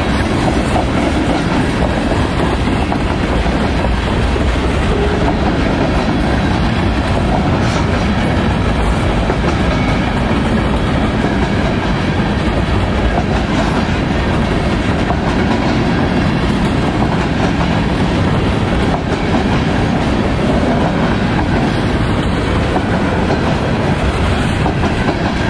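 Freight cars of a long mixed freight train (covered hoppers, boxcars, tank cars) rolling steadily past at a grade crossing. Their wheels make a continuous rumble on the rails, with scattered faint clicks.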